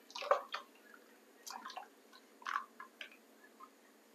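A silicone spoon stirring thin milky liquid in a stainless steel pot: irregular short splashes and sloshes, several in the first half-second, then a few more spread out.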